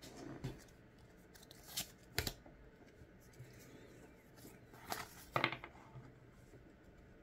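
Pokémon trading cards being handled: a few faint, sharp clicks and card-on-card slides as a freshly opened pack's stack is picked up and sorted, the sharpest about two seconds in and again about five seconds in.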